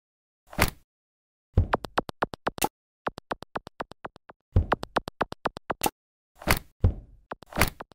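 Synthetic sound effects cut together over silence: a short burst, then three quick runs of bright ticks at about nine a second, then two more short bursts near the end.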